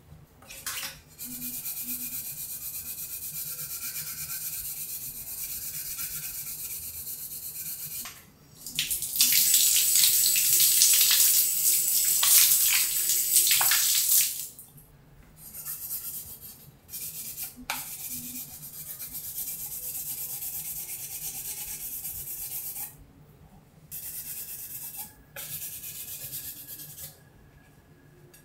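Sandpaper on a plastic block rubbing over car body filler on a plastic trim piece, a steady rasping in stretches with short pauses. In the middle a wall tap runs loudly for about five seconds as the sanding block is rinsed under it.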